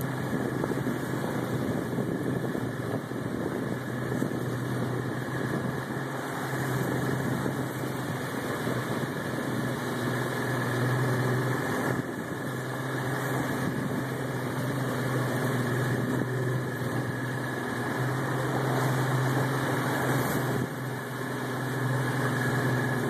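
Fishing boat's engine running steadily under way: a constant low hum with a rushing hiss over it.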